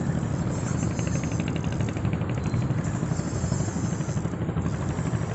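Steady low rumble, with a fast, even ticking from a Ryobi 6000 spinning reel starting about a second in as a hooked fish is played on the rod.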